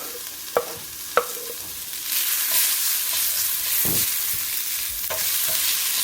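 Onions and coriander stalks frying in hot cooking oil in a pan, a steady sizzle with two sharp taps of a utensil against the pan in the first second or so. About two seconds in, the sizzle turns louder and brighter and stays that way, with a dull knock near the middle.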